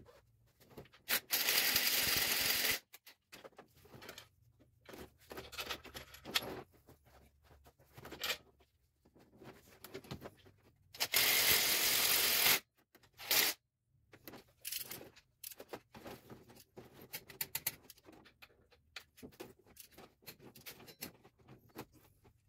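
Clicks and scrapes of tools and metal parts as a new belt tensioner is bolted onto an engine, with two loud bursts of even noise, each about a second and a half long: one about a second in and one about halfway.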